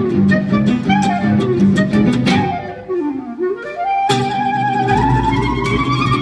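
Gypsy jazz quartet playing live: clarinet carrying the melody over two acoustic guitars strumming a steady rhythm and a plucked upright double bass. About halfway through, the guitars and bass drop out while the clarinet runs down and back up. The band then comes back in under long clarinet notes that climb slowly.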